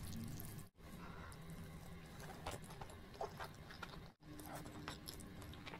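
Faint, close-miked eating sounds of spaghetti with meat sauce: forks twirling the noodles, then slurping and chewing, made up of small scattered clicks and wet smacks. The sound cuts out briefly twice, under a second in and about four seconds in.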